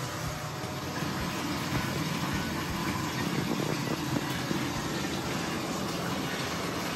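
Water running from a bathtub faucet into a filling tub: a steady rushing pour.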